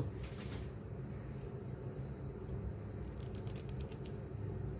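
Faint small clicks and rustles of hands handling an electrical cable and heat-shrink tubing at a workbench, over a low steady hum.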